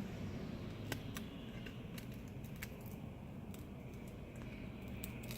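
A few faint, sharp light clicks and taps, scattered irregularly over a low steady hum, as small parts and tools are handled on the work surface.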